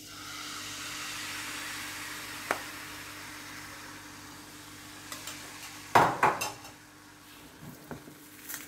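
Crepe batter sizzling as it is poured into a hot, oil-brushed nonstick frying pan, the sizzle fading over the following seconds. A light tap of the steel ladle about two and a half seconds in, and a couple of louder knocks on the pan about six seconds in, over a steady low hum.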